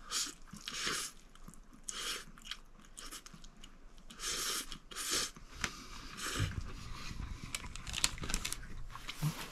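A man slurping ramen noodles up from a metal pot with chopsticks, in several short noisy slurps, then chewing. A few sharp clicks come near the end, as the chopsticks knock against the pot.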